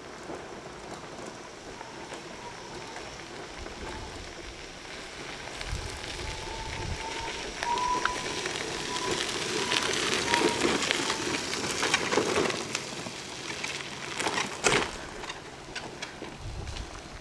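Permobil F3 power wheelchair rolling over a gravel trail: tyres crunching on the gravel, growing louder as it comes close and passes about ten seconds in, with a faint steady whine from its drive motors. A sharp knock sounds near the end.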